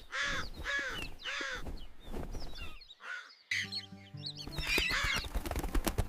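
Crow cawing over and over, about two caws a second, for the first couple of seconds. About halfway through, background music starts, with more bird calls over it.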